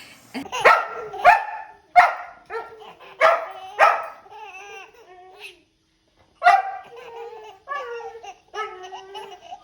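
A dog barking: several sharp barks in the first four seconds, then, after a short pause, a run of higher yelping calls.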